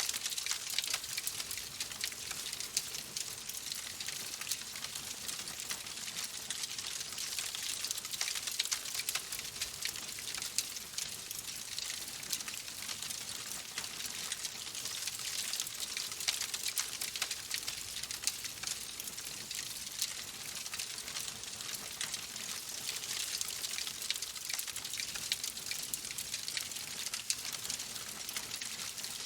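Wood fire crackling in a fireplace: a steady hiss with many small pops and snaps.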